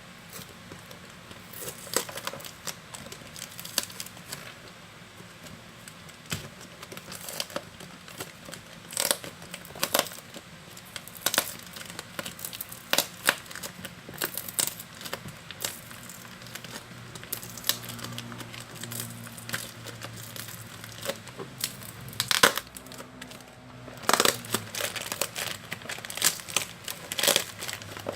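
Packaging being handled and opened, crinkling and crackling in irregular bursts.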